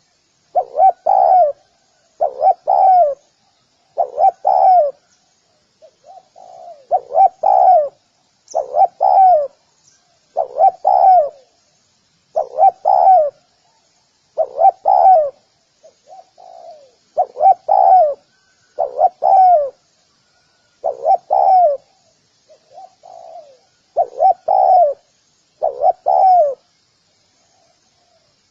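Spotted dove cooing: a phrase of two strong coos repeated about every two seconds, with softer coos between phrases.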